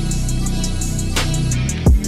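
Background music with a drum kit and bass: a steady beat over held bass notes, with a heavy kick drum hit near the end.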